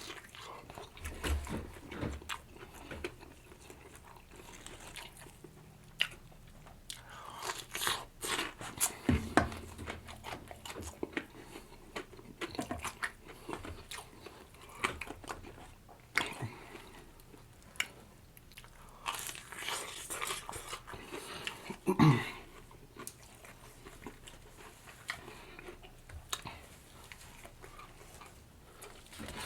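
Close-miked eating: biting and chewing a sauced, breaded fried chicken sandwich, with irregular crunches and wet mouth clicks. One louder crunching bite comes about two-thirds of the way through.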